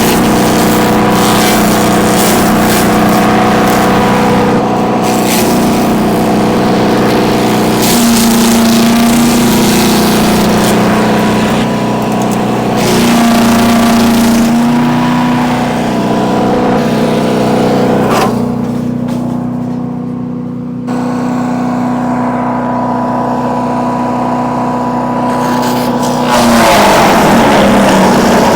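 Single-cylinder 224cc gas engine of a Bilt Hard wood chipper running loud and steady, with irregular crackling of branches being chipped. The engine note wavers twice, and a louder burst of chipping comes near the end.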